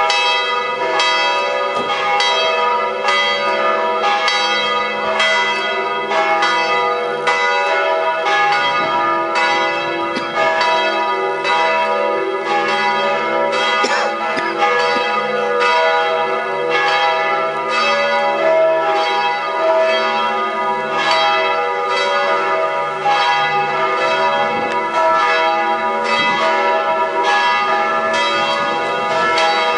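The three bells of Sainte-Agathe church in Maillane ringing together in full peal, presumably tuned to E, G-sharp and B, with strikes overlapping in a continuous, steady stream. This is the second call to the Saturday evening mass.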